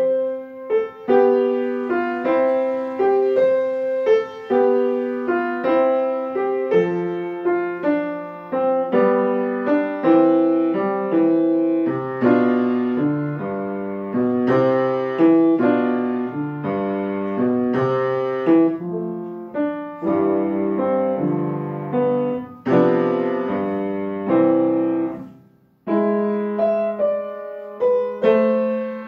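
A solo piece played on an upright piano, struck notes ringing and decaying one after another, with a brief pause about three-quarters of the way through before the playing picks up again.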